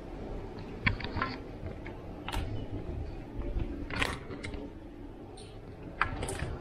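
Lever handle and latch of a glass balcony door clicking as they are worked by hand: several sharp clicks and knocks, the loudest about a second in and near the end.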